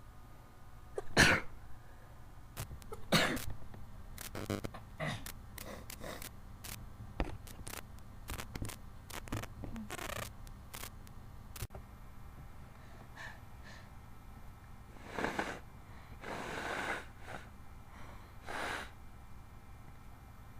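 A person sneezing again and again in a sneezing fit set off by something up the nose. The two loudest sneezes come about a second and three seconds in. A string of smaller, shorter bursts follows, then a few longer, noisier blasts of breath near the end.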